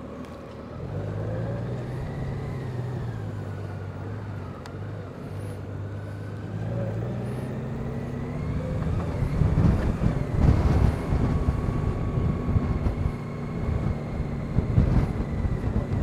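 Honda Gold Wing's flat-six engine running at low riding speed, its pitch drifting gently up and down. From about halfway through, gusts of wind buffet the microphone.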